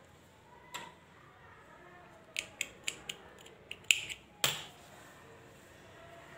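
Small spring-action thread snips clicking shut as they cut yarn: one click about a second in, then a quick run of sharp clicks and snips a couple of seconds later, ending with a louder knock.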